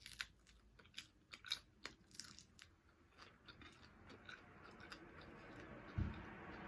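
Close-miked mouth chewing with crisp crunches, quick and clustered in the first three seconds, then softer; a dull low thump about six seconds in.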